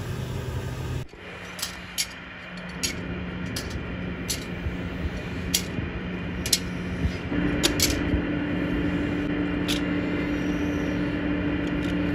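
Flat steel plates clinking sharply now and then as they are handled and stacked, over a steady machine hum; a second, higher-pitched hum joins about seven seconds in.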